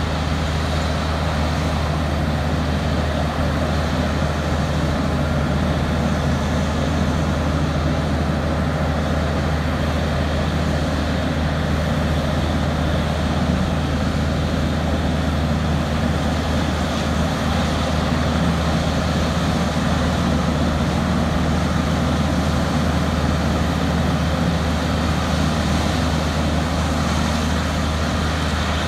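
Terex RH170 hydraulic front-shovel mining excavator and the haul truck beside it running steadily while the shovel loads the truck, a continuous heavy diesel engine sound with a steady low hum.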